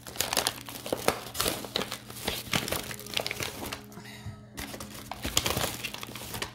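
Plastic packaging of a wax-melt sampler being opened and handled, an irregular run of crackles and rustles, with a short pause about four seconds in as a small plastic wax-melt cup is taken out and set down.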